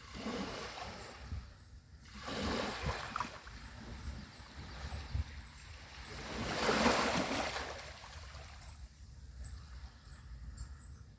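Small sea waves breaking and washing up the beach in several surges, the biggest about seven seconds in.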